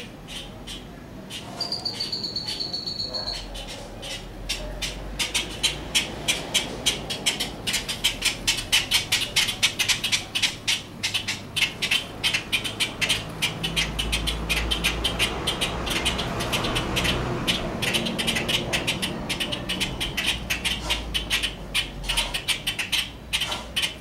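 A flock of birds in a tree clamouring: a dense, continuous run of rapid, harsh, repeated calls, several a second, that builds up a few seconds in, with one high drawn-out whistle near the start. The uploader takes it for birds crowding noisily around a young bird that cannot fly.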